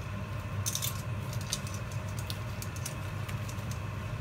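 A wooden spatula stirring and scraping a bubbling golden mixture in an aluminium pot on the stove. Scattered sharp clicks and crackles sound over a steady low hum.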